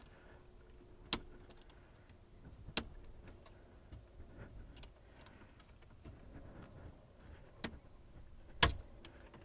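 A few scattered sharp clicks and taps of a screwdriver prying at the shift cable's plastic bushing on the metal shift lever stud, over a faint low rumble. The bushing is still sound and grips the stud tightly, so it does not come off.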